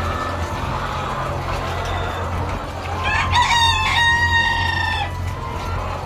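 Caged laying hens clucking over a steady low hum; about three seconds in, one chicken gives a loud, crow-like call of about two seconds, in two parts.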